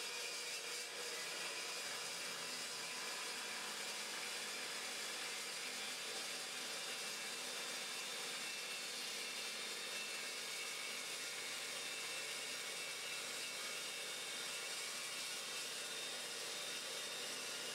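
Evolution Evosaw 355 chop saw running under load, its 355 mm (14-inch) steel-cutting blade cutting steadily down through 6-inch by 3-inch mild steel channel with an even, unbroken motor and cutting noise.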